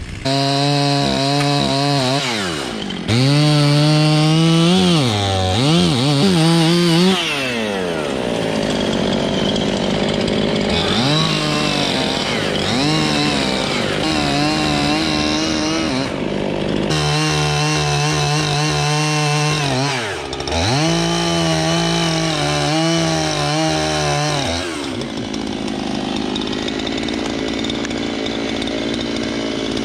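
Gas chainsaw running and cutting into oak, its engine pitch repeatedly rising and dropping as it revs and bogs under load in the wood.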